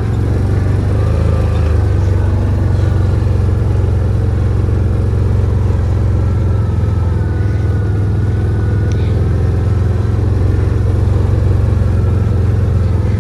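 A vehicle engine running steadily, a constant low rumble.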